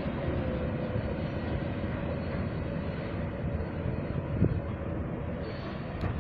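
Freight train cars rolling past: a steady rumble of wheels on rail with a faint steady whine that fades out midway, and a single short knock about four and a half seconds in.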